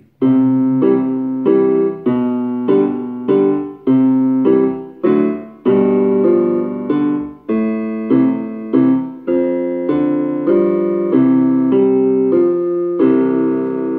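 Yamaha portable electronic keyboard played with both hands: a slow waltz in three time, an even run of notes and chords with no drum beat, ending on a long held chord near the end.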